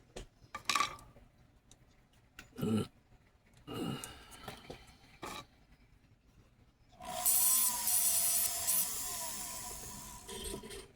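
A few light knocks and scrapes of tools being handled at a jeweller's bench. Then, about seven seconds in, a loud, steady rasping of a tool abrading a workpiece begins, lasts about four seconds and stops sharply.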